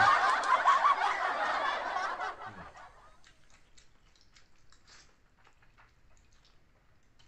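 A man laughing, a loud breathy laugh lasting about two and a half seconds, then faint scattered clicks as he eats noodles from a bowl with a fork.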